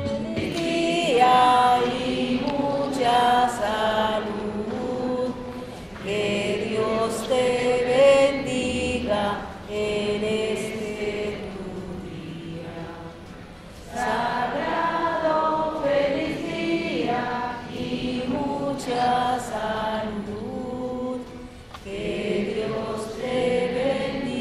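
Women's voices singing a slow song in long phrases, with short breaks between the phrases.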